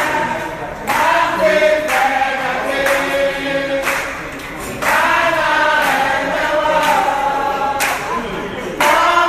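A group of restaurant staff singing their company song together in chorus, with a few sharp hand claps.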